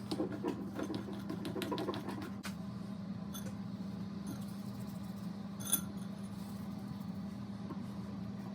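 A steady low hum, like a household appliance running, with a flurry of quick clicks and taps over the first couple of seconds and one sharp click about halfway through.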